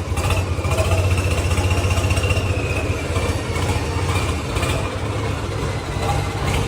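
Swaraj tractor's diesel engine running steadily as the tractor is driven, with a faint high whine for a couple of seconds early in the sound.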